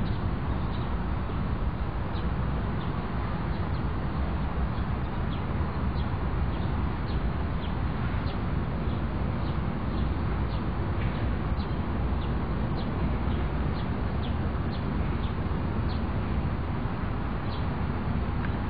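Small birds chirping in short, high calls scattered throughout, over a steady low rumble.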